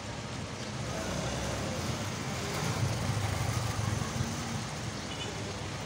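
A motor vehicle's engine running close by, a low steady rumble that grows louder for a couple of seconds in the middle, over general street noise.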